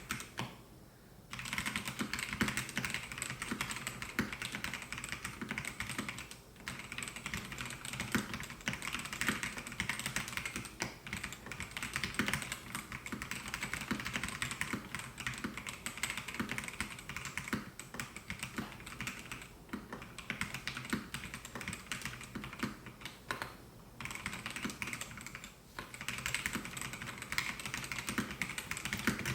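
Continuous typing on a Melgeek Mojo68 mechanical keyboard with white Pro switches: a rapid, irregular run of keystroke clacks, broken by a few brief pauses.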